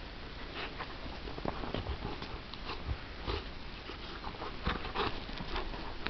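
Bernese mountain dog puppy biting, chewing and tugging at a red fabric toy, giving irregular crunching clicks and chewing noises. The noises are strongest about three seconds in and again near five seconds.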